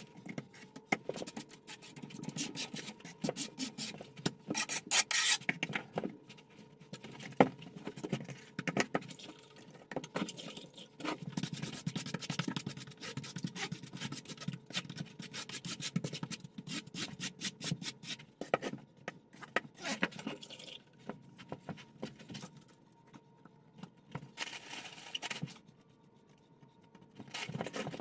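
Steel notched trowel scraping and spreading thin-set mortar, in quick repeated strokes, combing the mortar bed for a large porcelain floor tile. It stops briefly near the end.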